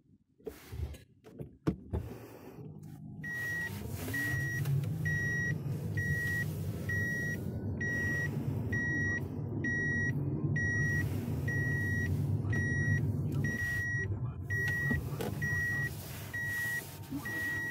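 A car's warning chime beeping evenly, about twice a second, from a few seconds in, over the low rumble of the car moving, which eases about three-quarters of the way through.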